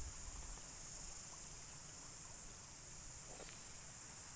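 Faint, steady, high-pitched chorus of insects droning without a break.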